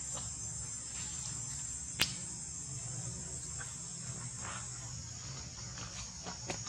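Insects droning steadily at a high pitch, with a low hum underneath and one sharp click about two seconds in.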